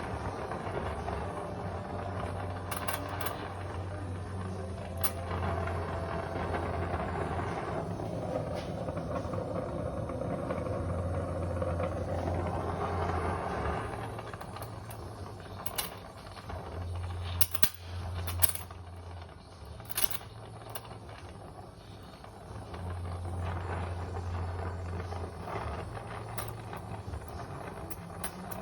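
Oxy-acetylene torch flame burning with a steady hissing rush while it heats a car door hinge pin. A few sharp clicks or taps come and go, mostly around the middle.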